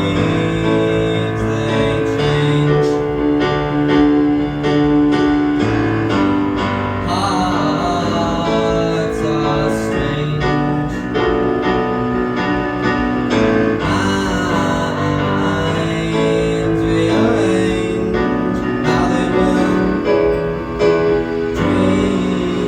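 Piano playing an instrumental passage of held chords over a moving bass line, from a musical-theatre song.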